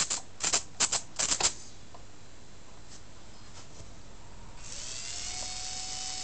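A quick run of sharp clicks in the first second and a half. About four and a half seconds in, the Deans Marine Minigear's tiny electric motor starts up under radio control, a steady whine whose pitch rises slightly and then eases.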